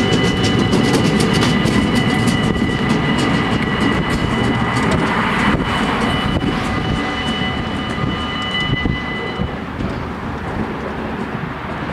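Dutch level-crossing warning bells ringing in a fast, steady rhythm while a DB diesel locomotive passes slowly over the crossing, its engine and wheels loudest in the first few seconds and fading as it moves away. The bells stop about nine and a half seconds in.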